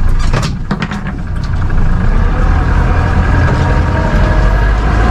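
Boat engine running steadily underway, with a few short knocks in the first second.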